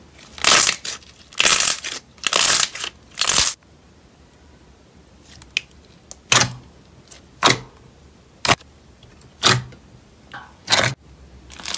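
Clear slime being squished and pressed by hand in a plastic tub: four wet squelching crackles in the first few seconds, then a run of short sharp pops about once a second as the fingers press air out of the slime.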